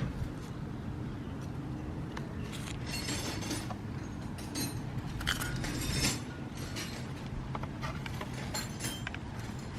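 Scattered light metallic clinks and clicks from tools and small parts being handled during the mirror work, over a steady low background rumble.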